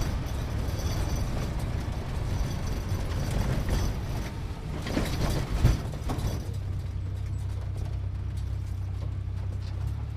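Sports car engine running unevenly, with a few sharp knocks about five seconds in, then settling into a steady low idle.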